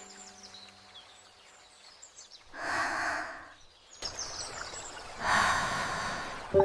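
Two short breathy whooshes, one about two and a half seconds in and a longer one near five seconds, over faint ambience with a few high chirps.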